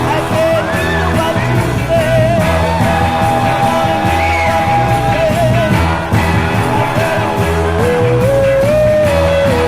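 An oldies soul record playing: a held, wavering lead melody over bass and drums, with no words.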